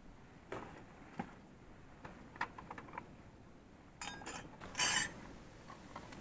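Metal cookware being set down and handled on a tent groundsheet: several short knocks and clinks of a steel kadai, spoon and bottle, then a louder rustle about four to five seconds in.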